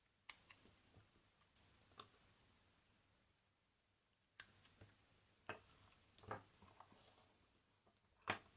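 Faint, irregular clicks and light knocks, about ten in all, from small plastic wireless alarm sensors being handled and switched on; the loudest knock comes near the end.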